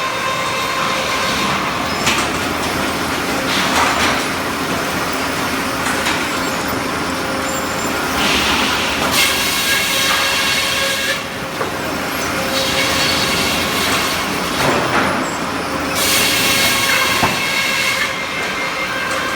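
Helle 3HB circular sawmill running, its blade giving a steady high whine over a grinding noise that swells and eases several times.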